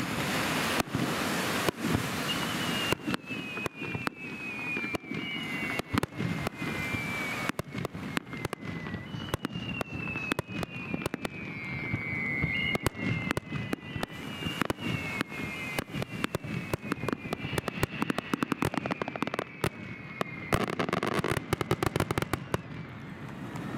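Aerial fireworks going off in quick succession: sharp bangs from bursting shells, with several whistles falling in pitch through the middle. Near the end comes a dense run of crackling.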